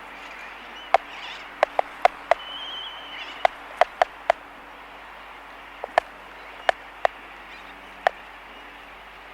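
Laysan albatrosses clacking their bills close up: about a dozen sharp, irregular clicks, some in quick pairs. Behind them runs a steady din of distant sooty terns and a faint low hum.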